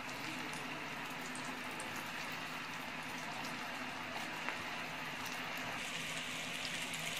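Mutton kola (meatballs) deep-frying in hot oil in an iron kadai: a steady bubbling sizzle that gets a little louder near the end.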